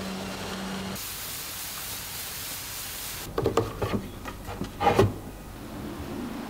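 A steady hiss, then a handful of sharp knocks and clunks as a large woofer driver is handled and set into a wooden speaker cabinet. The loudest knock comes about five seconds in.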